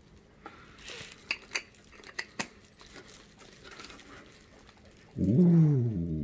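A white foam-plastic wrap crinkles and rustles as a camera lens is slid out of it, with a few sharp clicks. Near the end comes a short, loud pitched vocal sound that rises and then holds for about a second.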